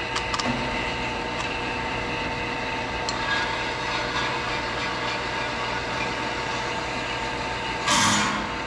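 Drill press motor running steadily while a long 12-inch bit is fed down through steel tubing, with a louder burst of cutting noise near the end.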